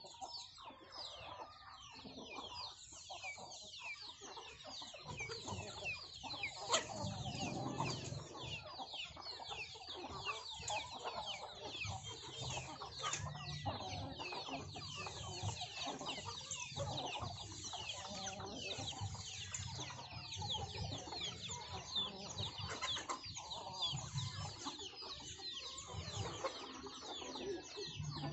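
Chickens feeding as a flock: a constant chorus of chicks peeping in short falling chirps, with hens clucking underneath. There is one sharp click about seven seconds in.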